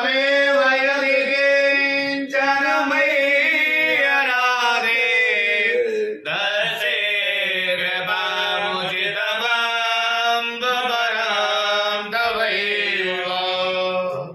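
Hindu priests chanting Sanskrit mantras in a continuous melodic recitation, with long held notes and short breaths about two and six seconds in.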